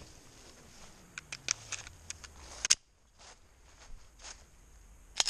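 Quick clicks and clacks of a pistol magazine being handled and swapped on an M&P Shield 2.0 9mm, with a sharp clack about two and a half seconds in. A single 9mm pistol shot cracks out near the end.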